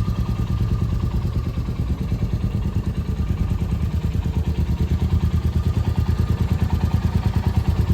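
Motorcycle engine idling steadily, with a fast, even beat of exhaust pulses.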